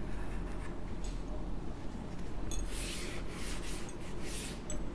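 Chalk scratching on a blackboard, then a board duster rubbing across the blackboard in several quick strokes from about two and a half seconds in.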